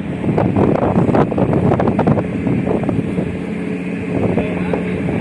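A tugboat's engine running steadily while it works a barge in alongside a ship's hull, with wind gusting on the microphone during the first couple of seconds.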